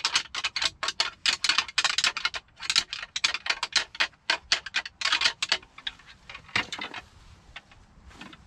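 A pair of deer antlers rattled and ground together in quick, dense runs of clicks for about five and a half seconds, then a few scattered clicks that taper off. This is antler rattling, which imitates two bucks sparring.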